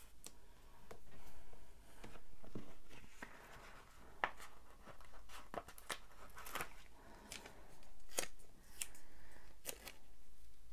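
Paper stickers being handled, peeled and pressed onto a planner page by hand: rustling that swells and fades about a second at a time, with several sharp clicks and taps.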